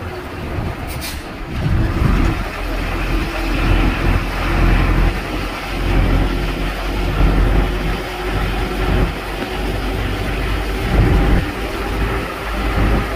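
Road and engine rumble of a moving vehicle, with wind buffeting the microphone in a loud, uneven low rumble.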